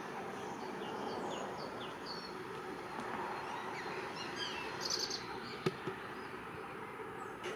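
Small birds chirping and twittering again and again over a steady outdoor background noise, with a brief rapid trill a little after the middle. A single sharp click about two thirds of the way through.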